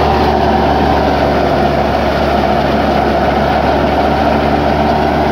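Tractor-driven wheat thresher running steadily under a Belarus tractor's diesel engine: a loud, even machine drone with a steady engine hum.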